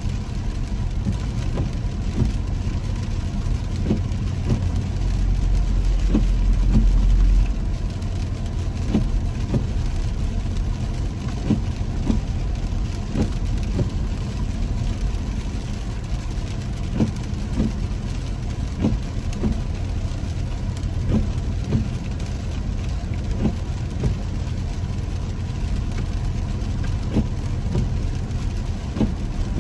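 A car driving on a wet road, heard from inside the car: a steady low road and engine rumble with raindrops tapping on the windshield. A deeper rumble builds about five seconds in and cuts off sharply a couple of seconds later.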